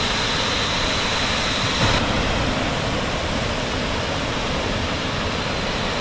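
Steady rush of water pouring over a small waterfall swollen with muddy runoff after rain.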